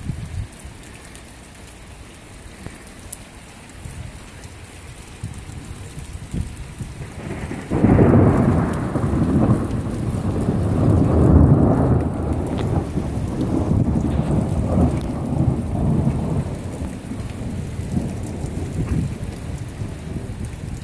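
Steady rain, then about eight seconds in a loud thunderclap breaks into a long rumble of thunder that swells and slowly fades over the next ten seconds.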